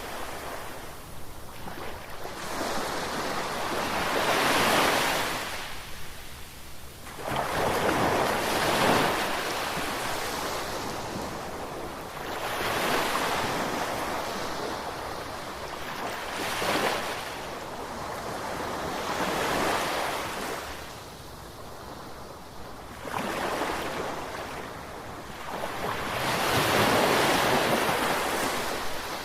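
Ocean waves washing in and breaking, the surf swelling and ebbing every few seconds.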